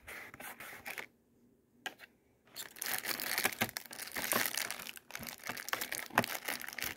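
Cardboard advent-calendar door being pried and torn open along its perforations, with crinkling and crackling of packaging. The handling stops briefly about a second in, then the crinkling resumes.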